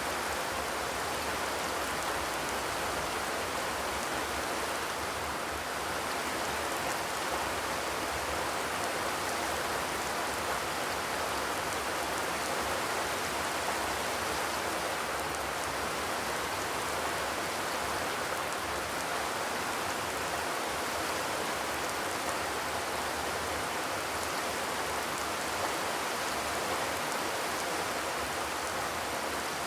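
Steady rain falling on a corrugated zinc roof, an even patter with no thunder.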